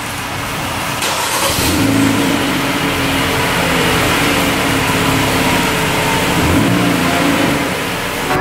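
A 2018 Jeep Compass's four-cylinder engine running, with a steady hum that grows fuller about a second in.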